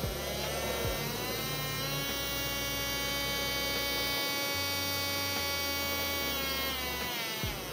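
A BLUETOP portable USB electric nail drill with a sanding band fitted, running free with a motor whine. The pitch rises over the first couple of seconds as the speed is turned up, holds steady, then falls near the end as the speed is turned down.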